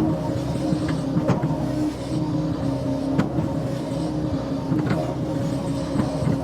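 Sany SY220C-9 hydraulic excavator's diesel engine running steadily under load, with a few sharp knocks from the machine's working parts.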